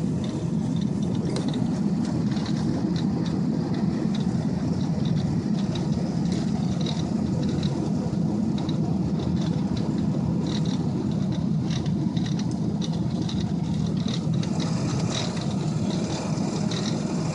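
Steady road noise of a 2002 Ford F-250 pickup driving on snow-covered roads, heard from inside the cab: engine and tyres running evenly, with scattered faint ticks.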